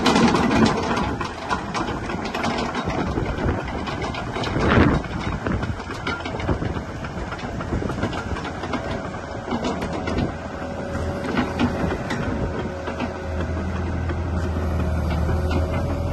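Cat 313GC hydraulic excavator's diesel engine running while the machine travels and turns on its tracks. The track chain clanks and knocks repeatedly, with one louder clunk about five seconds in, and the engine hum grows steadier near the end.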